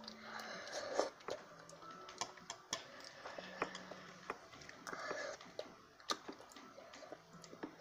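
A child chewing a mouthful of rice close to the microphone, quietly, with many scattered small clicks and smacks.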